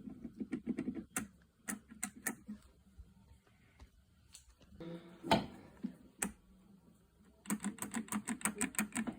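Clicking from the Simplicity 4211 garden tractor's starting system as the key is turned, without the engine turning over. Scattered clicks come first, then one louder clunk a little past halfway, then a rapid run of clicks, about six a second, near the end. The engine does not crank because, as the owner finds, it is locked up.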